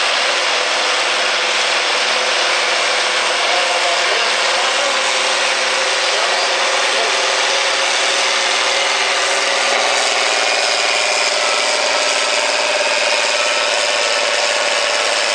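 John Deere 4440's six-cylinder turbocharged diesel engine running hard under load as it pulls the weight-transfer sled, a loud, steady drone with a slight change in pitch about two-thirds of the way through.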